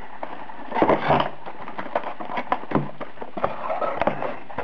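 Cardboard box and paper inserts being handled as the contents are pulled out: a run of small clicks, taps and scrapes, busiest about a second in.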